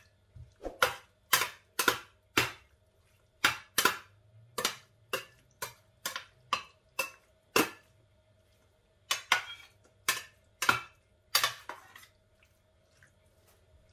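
Metal spatula clinking and scraping against a glass baking dish while stirring pasta, an irregular run of sharp clinks about two a second that stops near the end.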